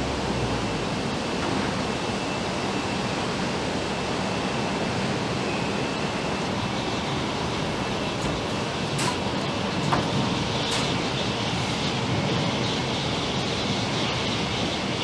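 Steady factory-hall noise as a car rolls slowly through at low speed, with a few sharp clicks and knocks about eight to eleven seconds in.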